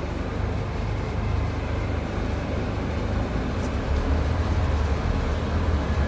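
Scania N250UD double-decker bus's diesel engine heard from inside the passenger saloon: a steady low drone as the bus moves slowly along, growing a little louder about four seconds in.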